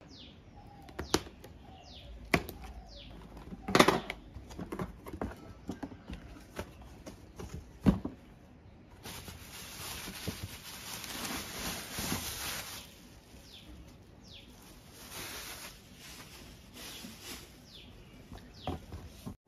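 Scissors snipping through plastic packing straps on a cardboard box, four sharp snaps in the first eight seconds. From about nine seconds in comes a long crinkly rustle of foam wrapping being pulled off a helmet, with birds chirping in the background.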